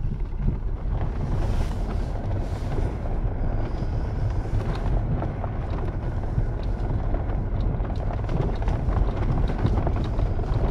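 Jeep Wrangler driving on a gravel dirt road, heard from inside the cab: a steady low rumble of engine and tyres on gravel, with scattered light ticks.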